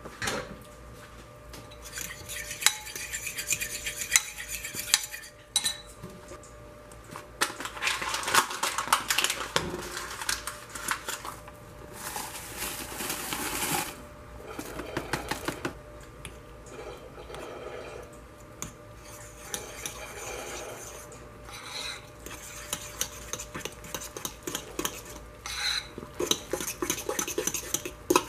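A metal spoon stirring in a ceramic mixing bowl, clinking and scraping against its sides, first through thin liquid and later through thick cornbread batter. About halfway through comes a rush of dry mix poured from its box.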